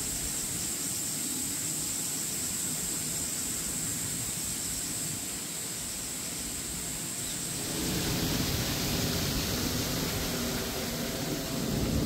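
Steady outdoor ambience: an even hiss with a constant high-pitched buzz above it, growing fuller and slightly louder about eight seconds in.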